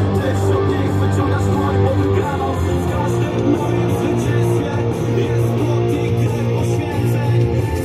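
Music with strummed guitar.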